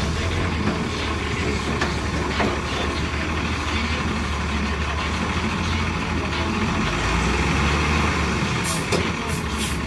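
Heavy diesel truck engine running steadily as the water truck creeps up to the trailer to be loaded, with a few short hisses near the end.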